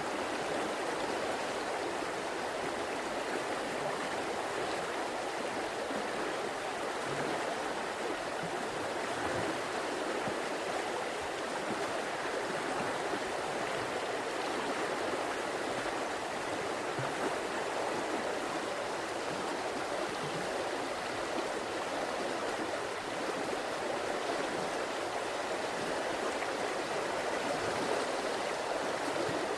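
River water flowing and rushing steadily, a continuous even rush without breaks.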